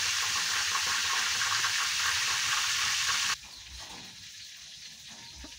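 Frogs frying in hot oil in a metal pan: a steady sizzle that cuts off suddenly a little over three seconds in.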